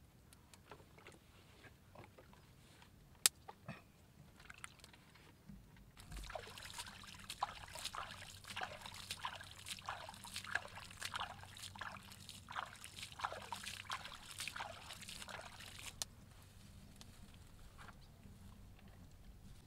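A hand scooping and flinging water, a run of splashes about two a second for some ten seconds, starting about six seconds in. Before it come a few light wooden clicks and one sharp knock from firewood sticks being laid.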